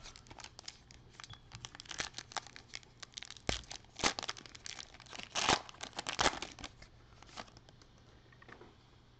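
Foil wrapper of a Panini Prizm trading-card pack being torn open and crinkled by hand: a run of crackles, loudest about four and five and a half seconds in, dying away after about seven and a half seconds.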